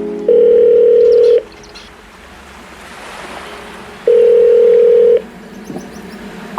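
Two long, steady electronic beeps at the same low pitch, each about a second long and spaced nearly four seconds apart, in the pattern of a telephone ringback tone, with faint hiss between them.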